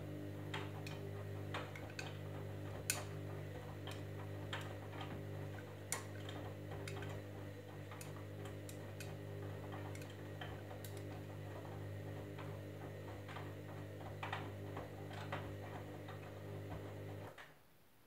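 Candy Grand'O Vita washing machine tumbling a wash load: the drum motor hums steadily while scattered clicks and knocks come from the laundry turning in the drum. The motor stops suddenly about a second before the end.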